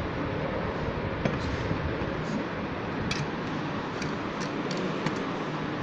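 Several light metallic clicks and taps from the aluminium castings of a motorcycle engine's cylinder head and cylinder block being handled and fitted over the studs, against a steady background noise.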